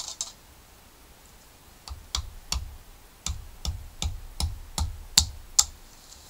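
Pathfinder Scout knife being batoned into a stick with a wooden baton: a quick run of about ten sharp wooden knocks, two to three a second, as the blade splits the wood to make a stirring spoon.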